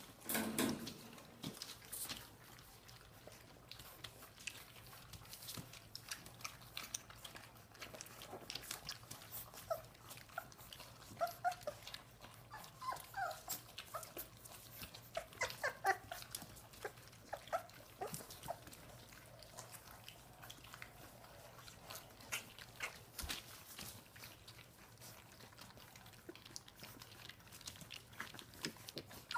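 Dogue de Bordeaux puppies eating wet weaning mash from a shared steel pan: a steady run of small lapping and smacking clicks, with short high whimpers and squeaks from the pups through the middle stretch. A louder thump just after the start.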